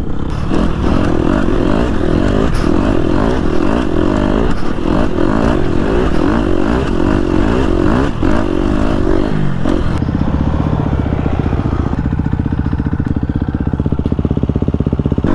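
Husqvarna FC 250 four-stroke single-cylinder dirt bike engine with an FMF exhaust, ridden on sand: the engine note climbs and falls repeatedly as the throttle is worked, with wind on the helmet microphone. About ten seconds in the wind drops away and the engine settles to a steady low-rev putter.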